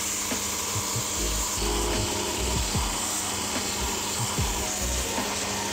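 Background music with a steady beat over the rasping of a leather shoe sole held against the spinning sanding wheel of a cobbler's finishing machine, grinding away the old sole and heel leather.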